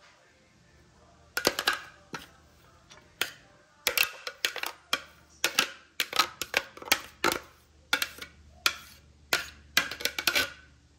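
A plastic spatula knocking and scraping against the plastic bowl of a Ninja blender's food-processor attachment while grated beetroot is scraped out. It is an irregular series of sharp taps and clicks, starting about a second and a half in.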